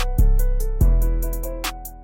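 Background music: a hip-hop beat with deep fading bass hits, quick hi-hat ticks and a plucked, guitar-like melody.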